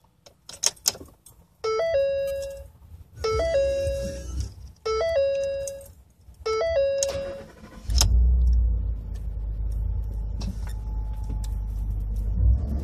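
A Ford F-150's warning chime sounds four times. At about eight seconds in, the 5.0 V8 starts cold and settles into a rough, uneven idle, the result of ignition timing retarded 9 degrees on the cold-start map.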